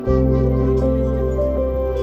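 Background music: sustained low notes under a slow melody of held tones.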